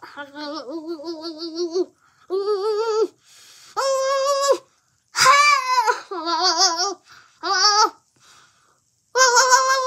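A boy's muffled, wordless voice sounds, made with a wad of paper in his mouth: about seven held, wavering high notes in a row with short gaps, some of them higher than others.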